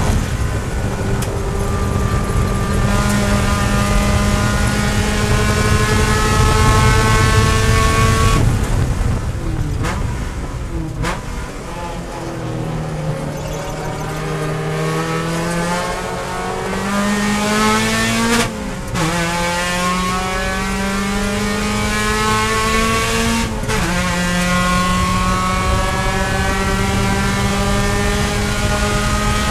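Race-prepared Mazda Miata's four-cylinder engine heard from inside the cockpit. It runs at high revs, then the throttle is lifted for braking and the pitch drops through downshifts into a slow corner. It then accelerates hard, the pitch climbing and falling back at upshifts about two-thirds and four-fifths of the way through.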